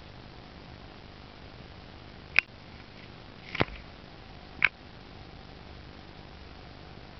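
Three short sharp clicks about a second apart, the middle one with a dull thump: a cat's paw and body knocking against a plastic pet basket and its handle.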